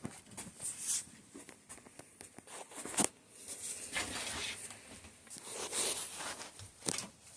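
Hands working on a bicycle suspension fork and its tools: a series of small clicks and taps, the loudest about three seconds in, with stretches of rustling and scraping in between.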